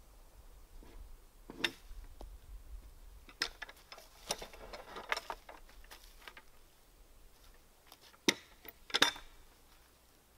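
Scattered sharp knocks and metallic clinks of a hand tool working a squared timber beam, with a stretch of scraping in the middle. The two loudest knocks come close together near the end.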